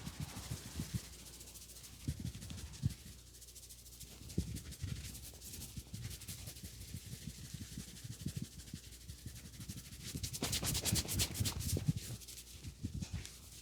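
Hands rubbing and scrubbing over a customer's hair and scalp during a head massage, with soft low thumps of pats and presses. A louder stretch of fast, vigorous rubbing comes about ten seconds in.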